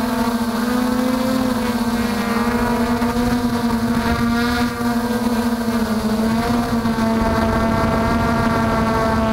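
MJX Bugs 3 quadcopter's brushless motors and propellers running in flight, heard close up from on board: a steady hum-whine whose pitch drifts slightly up and down, with some wind noise.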